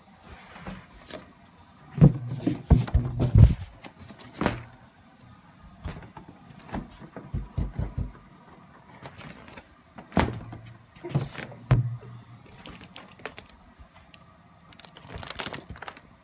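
Irregular knocks and thumps coming in clusters, loudest about two to three and a half seconds in and again around ten to twelve seconds, with quieter single knocks between.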